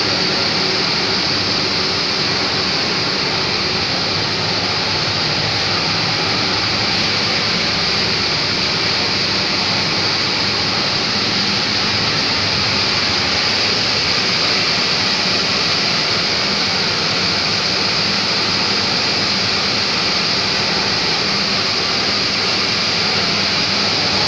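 Running machinery of a vapour absorption chiller plant room: a steady, even roar and hiss with a faint low hum beneath it.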